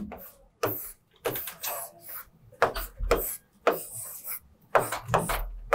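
A pen drawing on a writing board, making a series of short scratching strokes about two a second as a box is drawn, with a low bump about three seconds in and again near the end.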